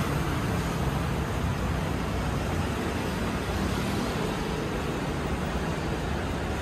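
Steady city traffic noise: an even wash of road noise without any distinct events.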